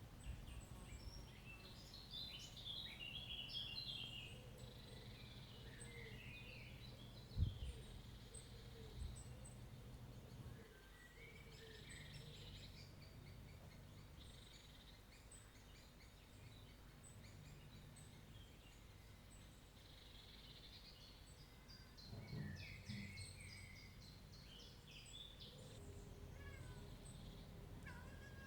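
Faint chirping and song of small birds, in quick repeated notes that come in clusters, over a low steady rumble. A single knock sounds about seven and a half seconds in.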